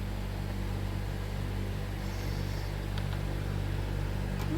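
A steady low electrical-sounding hum under a faint even hiss, with two faint clicks near the end.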